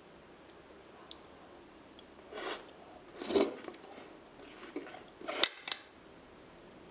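Wet mouth sounds of eating a slippery piece of raw aloe vera gel topped with chili sauce, in a few short bursts. About five and a half seconds in there is a sharp clink of a metal spoon against the glass sauce bowl.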